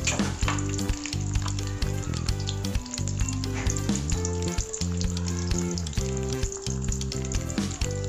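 An egg frying in plenty of hot oil in an aluminium wok, sizzling and crackling steadily, over background music.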